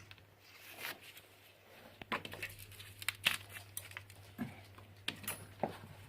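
Cardboard egg box being handled and torn apart: scattered crinkling and light clicks.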